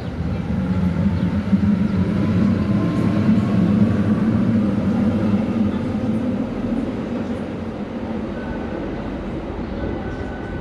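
A train running past on the station tracks, its low running noise swelling to a peak about four seconds in and then easing off, with a faint whine above it. A steady high tone sets in near the end.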